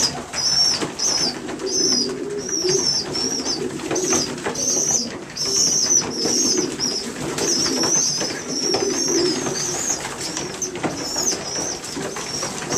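Newly weaned young racing pigeons (squeakers about four weeks old) squeaking over and over, short high wavering cheeps several a second: the food-begging call of squabs that are still learning to eat on their own. A lower pigeon cooing murmur runs underneath.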